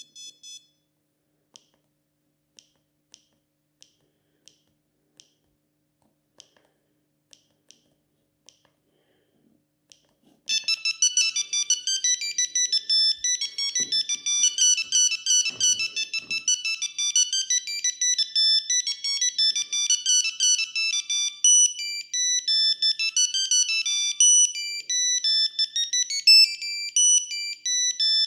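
Siemens S35 mobile phone playing one of its built-in ringtones: a fast, beeping electronic melody that starts about ten seconds in and plays on. Before it comes a dozen or so short, faint, high beeps spaced irregularly.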